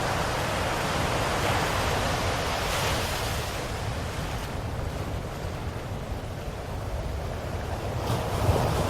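Ocean waves washing on a shore in a steady hiss of surf, one wave breaking and fading about a third of the way through and the next building near the end.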